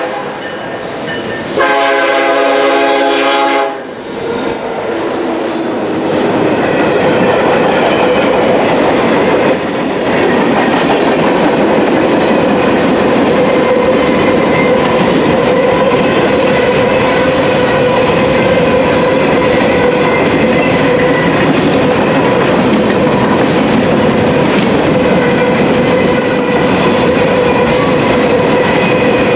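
EMD SD70ACE locomotive horn sounding briefly, then again for about two seconds. The train then rolls past with its wheels clattering over the rails and a steady high squeal as it takes the crossover.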